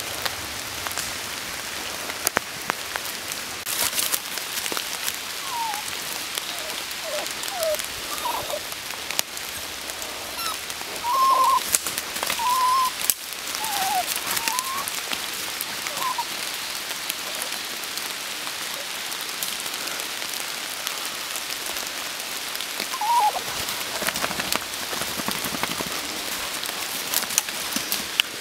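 Steady rain falling on forest leaves: an even hiss dotted with the clicks of drops. Several short pitched calls come through over it, loudest about eleven to thirteen seconds in, and once more near the end.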